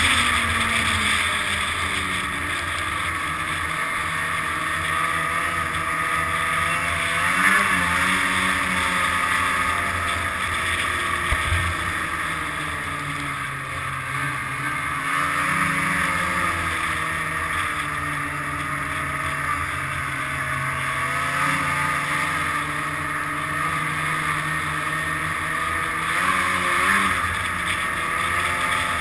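Snowmobile engine running under way, its pitch rising and falling as the throttle changes, with quick revs about a quarter of the way in and again near the end.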